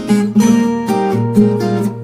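Background music of plucked and strummed acoustic guitar.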